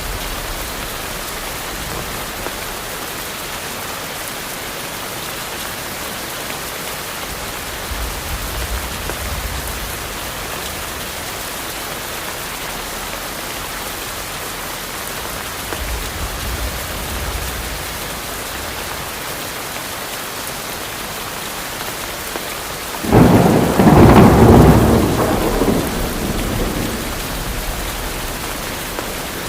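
Steady heavy rain falling, with faint low rumbles of distant thunder twice, then a loud thunderclap about 23 seconds in that rolls for a few seconds and fades.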